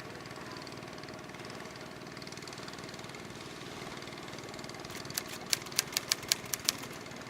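An engine running steadily with an even, rapid pulse. About five seconds in, a quick run of about eight sharp clicks or knocks sounds over it.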